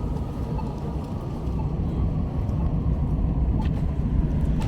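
Steady low rumble of a road vehicle running, with a couple of faint clicks near the end.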